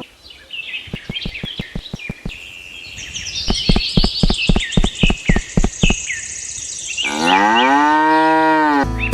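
A cow moos once, a long call that rises, holds and falls near the end. Before it come a quick run of sharp taps or clicks and small birds chirping.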